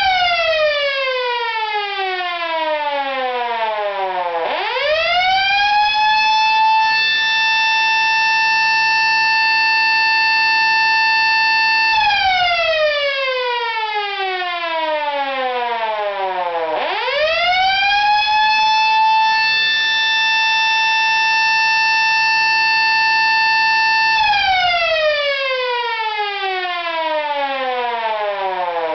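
Federal Model A electromechanical siren cycled on and off by a Federal PGA timer's alarm program, about 8 seconds on and 4 seconds off. It opens holding one steady tone and slides down in pitch as it coasts. It then winds up quickly twice, holding the steady tone for about seven seconds each time before winding down again, and is starting a third wind-up at the very end.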